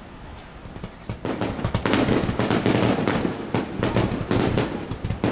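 Fireworks going off in a rapid barrage of sharp bangs and crackles, which starts about a second in and keeps up without a break.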